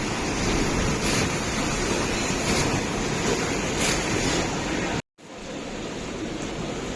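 Rushing water of a river in flood, a steady noise. It cuts out for a moment about five seconds in and comes back quieter.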